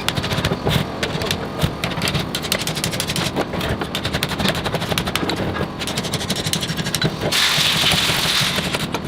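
Workshop noise from work on an alternator: a dense, irregular rattle of clicks and knocks, then a steady hiss that starts a little after seven seconds in.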